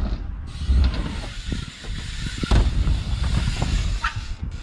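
BMX bikes riding the ramps: tyres rolling over the ramp surfaces in an uneven low rumble, with a sharp knock about halfway through.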